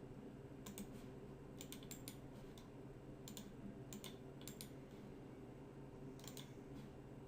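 Faint clicks of a computer keyboard and mouse, in scattered small groups, over a steady low hum.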